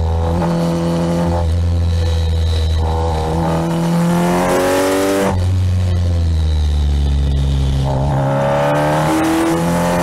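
Kawasaki Ninja 1000SX's inline-four engine under way, its revs climbing and dropping back several times as the rider accelerates and shifts or rolls off the throttle. A rush of wind swells for a moment about four to five seconds in.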